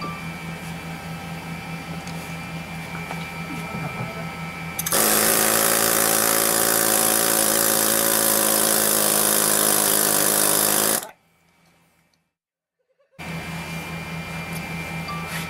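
Pneumatic air hammers running: a quieter, steady fast rattle, then about five seconds in a much louder air hammer takes over, hammering hard for about six seconds before cutting off suddenly. After a brief near silence the quieter rattle of the Apyuan low-recoil air hammer resumes near the end.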